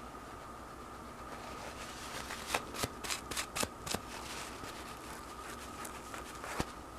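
Short scraping and clicking handling sounds from cleaning a Beretta 92FS pistol barrel: about half a dozen quick strokes beginning about two and a half seconds in, and one more near the end, over a faint steady hum.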